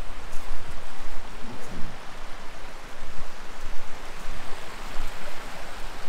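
A shallow, rocky river rushing steadily, with an uneven low rumble underneath.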